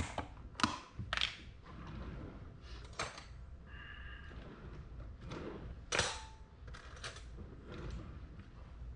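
Kitchen handling sounds: the plastic lid of a tub of spread is pried and pulled off with a few sharp clicks. Then metal cutlery clinks and rattles in a drawer as a knife is taken out, with another sharp click about six seconds in.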